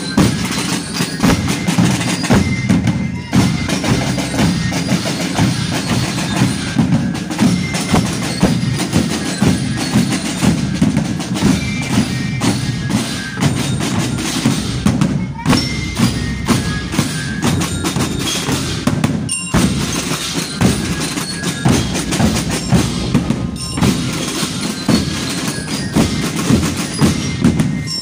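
A marching band playing: drums keep a steady marching beat while metallic mallet percussion, bell lyres, rings out short high notes over them.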